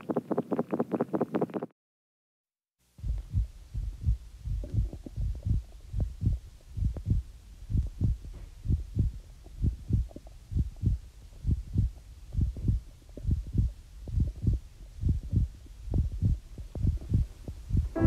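A heartbeat sound effect: low, steady lub-dub thumps in close pairs, about one beat a second, starting about three seconds in. Before it there is a short, fast, even rattle that cuts off, then a moment of silence.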